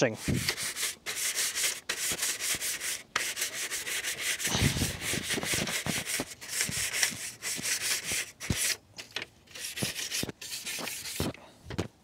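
Stiff bristle scrub brush scrubbing a wet, soapy plastic air-conditioner front grille in quick back-and-forth strokes, working off grime that soap and water alone won't lift. The scrubbing comes in runs with short pauses and stops shortly before the end.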